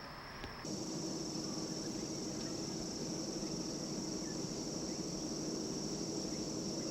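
Steady, high-pitched insect chirring over a low, even hum, starting abruptly about half a second in.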